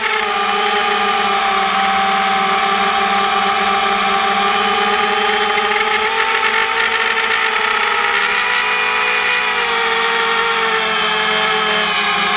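FPV racing drone's electric motors and propellers whining steadily, heard from the camera on board, the pitch drifting up and down as the throttle changes.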